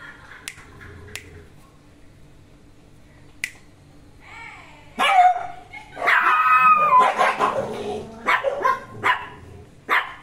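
Small fluffy dog barking in play at another dog. A short whine comes about four seconds in, then loud, high-pitched barks and yaps from about five seconds, with one long wavering bark-howl, ending in short single barks.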